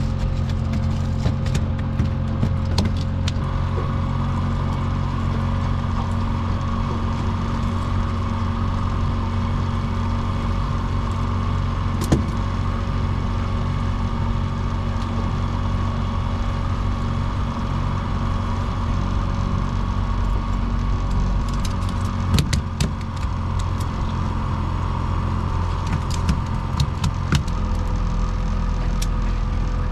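Boat motor running steadily at trolling speed, with scattered light clicks and knocks on the boat, one louder knock about twelve seconds in.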